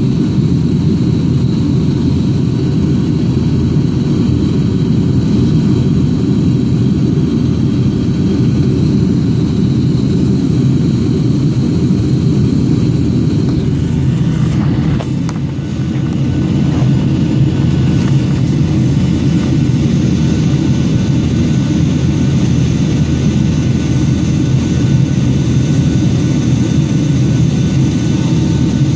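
Steady cabin roar of a jet airliner in flight, heard from inside the cabin at a window seat over the wing. It is a deep, even rushing noise from the engines and the airflow, with a brief dip and a few faint knocks about halfway through.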